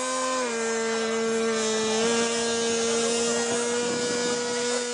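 Electric ducted fan of an R/C jet whining steadily in flight, its pitch dropping slightly about half a second in and rising a little around two seconds in.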